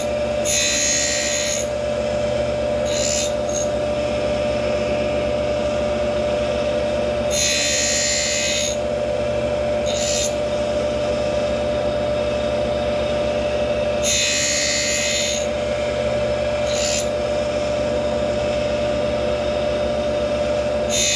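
Tool post grinder running with a steady whine while its wheel grinds the teeth of a horizontal milling cutter. A high grinding sound of about a second and a half comes roughly every seven seconds as the wheel passes across a tooth, with a brief touch of the wheel between passes.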